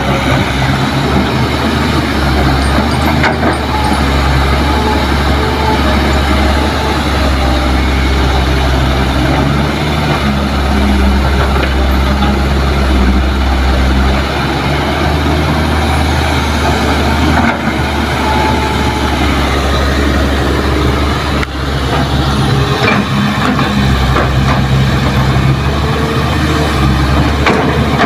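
Kobelco hydraulic excavator's diesel engine running under load as it digs, lifts and swings its bucket; a loud, steady engine note that swells and eases every few seconds with the hydraulic work.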